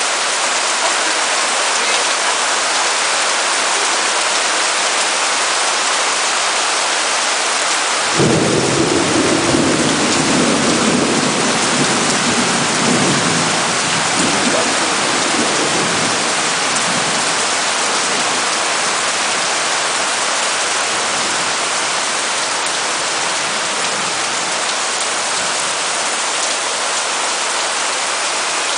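Heavy rain falling in a steady dense hiss. About eight seconds in, thunder breaks suddenly and rumbles for several seconds before fading back under the rain.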